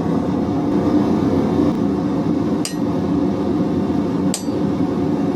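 Two sharp hammer blows on steel, each with a brief metallic ring, about a second and a half apart, over the steady rushing noise of the forge running.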